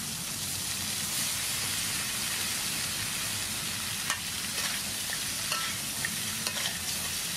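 Cut squid sizzling steadily as it fries in hot oil in a metal wok. From about four seconds in, a metal spatula stirring it scrapes and taps against the wok a few times.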